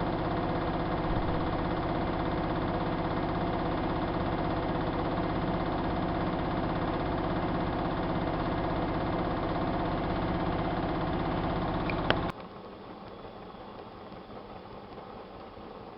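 Siemens iQ WIQ1430 front-loading washing machine running with a steady motor hum of several fixed tones. About twelve seconds in there is a sharp click, and the sound drops abruptly to a faint steady hiss.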